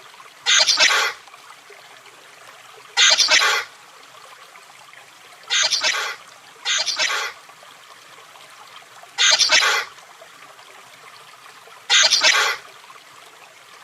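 Chameleon calls: six short bursts, each about half a second long, a few seconds apart, with two coming close together near the middle.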